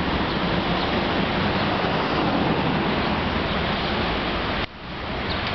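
Steady rushing outdoor noise, heavy in the low end, that drops off suddenly near the end and then builds back up.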